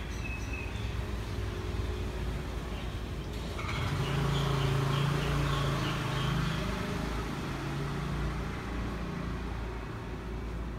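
Motor vehicle passing nearby over a steady outdoor traffic rumble: its engine hum swells about four seconds in and fades away over the next few seconds. Faint repeated bird chirps come through while it passes.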